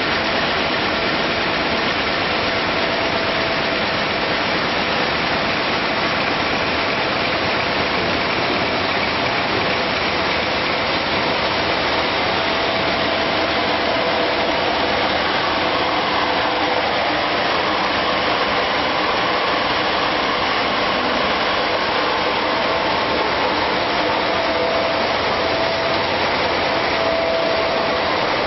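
Pop-up facial tissue production line running: a steady, dense machine noise with a faint steady whine underneath.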